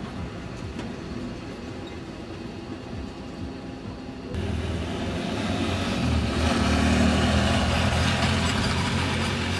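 Outdoor low rumble for the first few seconds. Then the small engine of a motorcycle cargo trike passing, growing louder to a peak about three seconds later before easing off.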